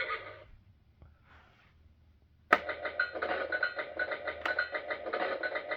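Electronic sound effect from a Fisher-Price Great Adventures Magic Castle playset's speaker, set off by the stagecoach-driver figure. A click about two and a half seconds in starts a rhythmic, pulsing pitched sound at about five beats a second.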